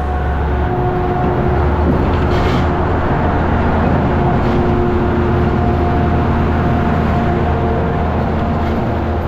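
Peterbilt 389 semi truck running at highway speed while pulling a heavy oversize load: a steady, loud, low diesel drone with tyre and road noise.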